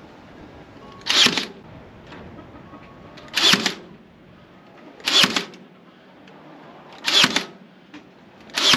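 Cordless battery-powered staple gun firing 3/4-inch staples through hardware cloth into a wooden post, five sharp shots about one and a half to two seconds apart.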